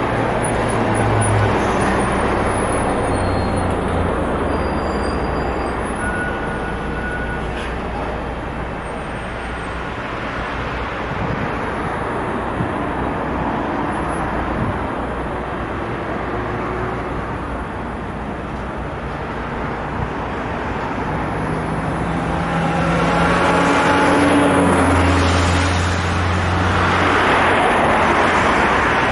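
Steady road traffic on a multi-lane city avenue, with cars passing by and the hiss of their tyres. A louder vehicle goes past near the end with a low hum.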